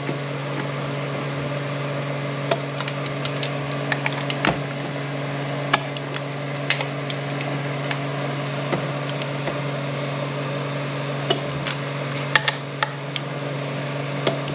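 Scattered sharp clicks and light metal clinks of hand tools working bolts on a T5 manual transmission, irregular and a few a second at most, over a steady low hum.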